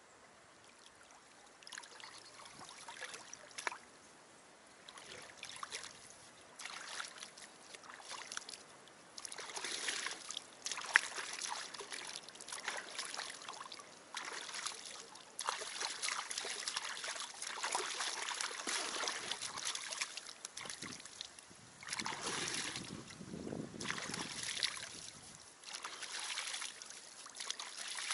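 Shallow river water splashing and sloshing in uneven bursts as a person wades, stands up and scoops water over his head and body. A brief sharper splash stands out about a third of the way in.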